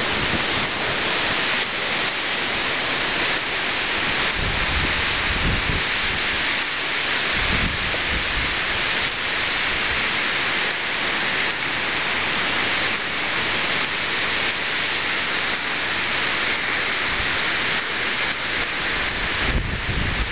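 Steady downpour of tropical-storm rain with heavy wind, hissing on wet ground and decking. Low rumbling wind gusts buffet the microphone, once about five seconds in and again near the end.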